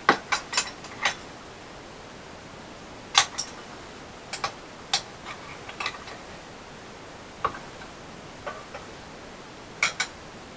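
Sharp metal clinks and taps at irregular intervals: a quick run of four at the start, then single and paired knocks, from steel rod and tools being handled at the workbench.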